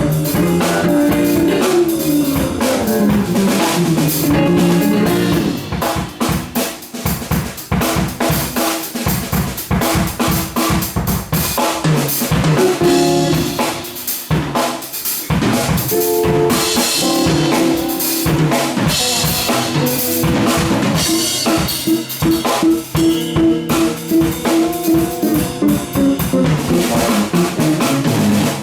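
Live band playing a funk jam: a drum kit with kick, snare and rimshots over a moving bass line, the pitched parts thinning briefly twice so the drums stand out.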